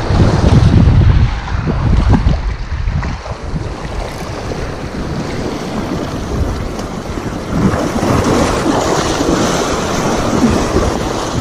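Small sea waves washing and splashing over shoreline rocks, with wind buffeting the microphone. The wind rumble is strongest in the first second or so, and the wash of the water grows louder about halfway through.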